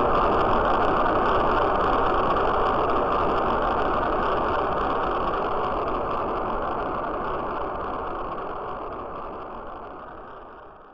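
Rocket launch just after liftoff: the engines' steady rushing noise, slowly fading away.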